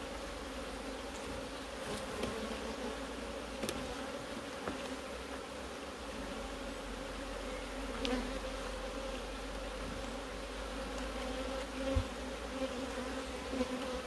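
Honeybees buzzing around an open hive, a steady hum, with a few faint knocks from the frames being worked.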